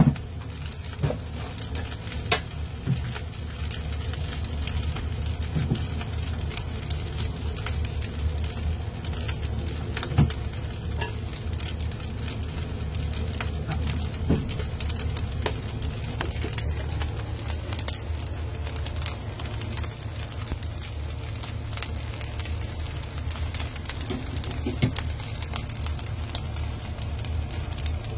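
Fried rice sizzling in a stainless steel wok, with a steady low hum underneath. A metal spatula now and then clinks and scrapes against the pan, the sharpest clink right at the start.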